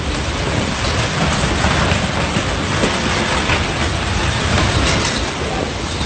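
Violent wind gusts driving heavy rain in a storm squall: a loud, steady rushing noise with deep rumble, without let-up.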